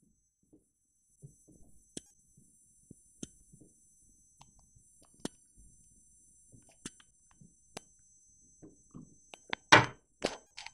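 Scattered light clicks and knocks from tin cans and a candle being handled and set beneath a homemade Stirling engine, with a short, louder rasp near the end.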